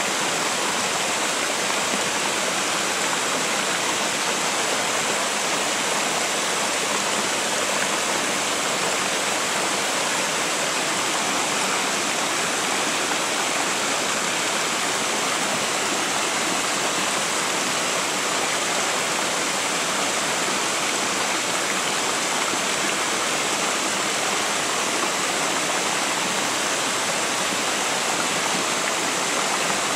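Mountain river water pouring over a low stepped weir in small cascades: a steady, even rushing and splashing that never changes.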